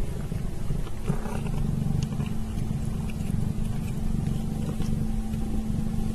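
Domestic cat purring close to the microphone: a steady low rumble.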